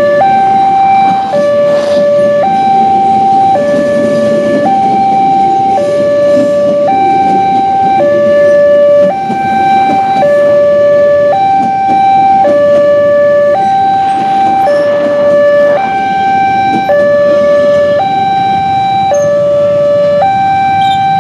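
A railway level crossing's electronic warning alarm sounds a two-tone ding-dong, high and low tones alternating about once a second. Underneath it, the rumble of passenger carriages running over the rails.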